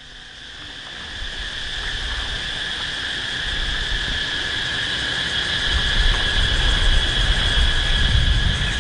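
Insects chirring in a steady, even high buzz that swells in over the first couple of seconds, with a low, uneven rumble growing underneath from about halfway through.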